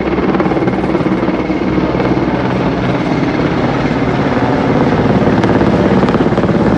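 Four military helicopters flying low overhead in formation, their rotors making a fast, steady chop with engine whine, growing somewhat louder as they come over.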